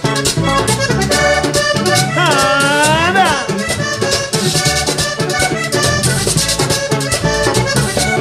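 Live vallenato band playing an instrumental passage: a button accordion leads over a hand drum, electric bass and steady rhythmic percussion. About two seconds in, a sliding vocal cry rises and then falls.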